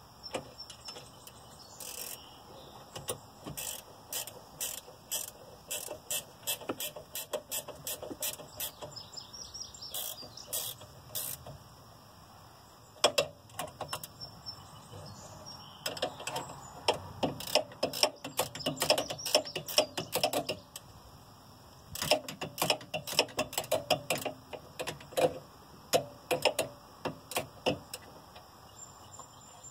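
Hand socket ratchet clicking in repeated runs of quick strokes with short pauses between, tightening the mounting bolts of a diesel lift pump.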